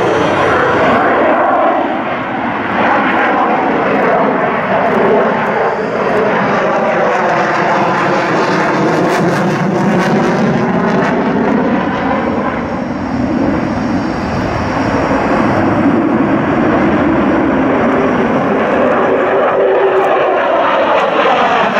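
General Dynamics F-16 Fighting Falcon's Pratt & Whitney F100 turbofan running at high power with the afterburner lit. It makes a loud, continuous jet roar with sweeping, phasing tones that rise and fall as the aircraft manoeuvres overhead.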